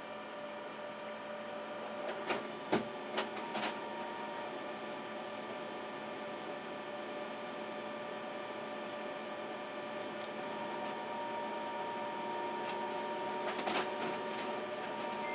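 Steady mechanical hum made of several fixed tones, with a few sharp clicks: a cluster about two to four seconds in and a few more near the end.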